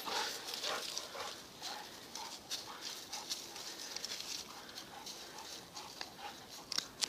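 Two dogs playing over a stick on dry grass and fallen leaves: paws scuffling and leaves rustling in short, irregular scrapes.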